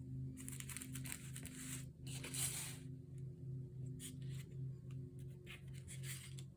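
Paper rustling and crinkling in several bursts as sheets are handled, the longest in the first three seconds, over soft background music.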